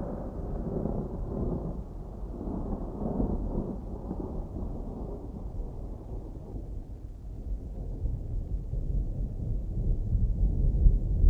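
Distant thunder rumbling, a low rolling sound that fades off over the first half and swells again in a deep rumble near the end.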